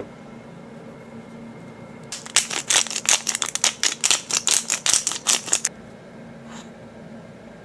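Salt and pepper being shaken or ground from a hand-held container onto a fried egg: a quick run of sharp rattling strokes, about five a second, for some three and a half seconds starting about two seconds in. A light knock at the very start.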